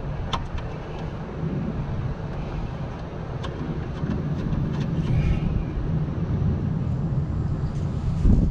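Scattered light clicks and taps of hand tools and screws being fitted inside a car door, over a steady low rumble, with a louder knock near the end.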